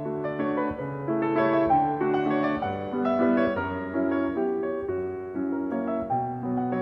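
Background music: piano playing a gentle melody over held chords.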